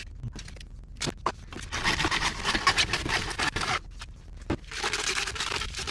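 Rough scraping and rubbing of PVC pipe as it is measured and handled. The scraping comes in two stretches, about two seconds and then about one second long, with a few knocks and clicks between them.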